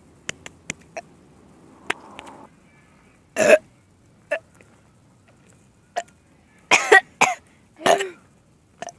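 A person's short, harsh burps, several of them a few seconds apart with a cluster near the end, mixed with small clicks and handling noises early on.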